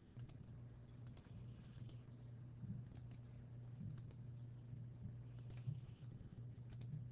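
Faint computer mouse clicks, several in quick pairs, a second or so apart, pressing keys on an on-screen calculator, over a low steady hum.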